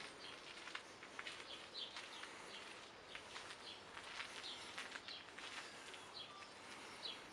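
Small birds chirping outdoors, many short high chirps scattered over a faint background.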